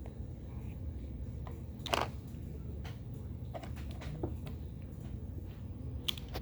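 Small flathead screwdriver turning a screw out of an eyeglass frame's spring hinge: a few faint, sparse clicks, the clearest about two seconds in, over a steady low hum.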